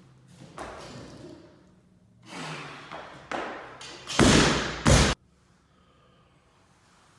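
Heavy breathing and effort sounds, then a loud thud and crash of a loaded barbell landing on the lifting platform, about four seconds in; the sound cuts off suddenly.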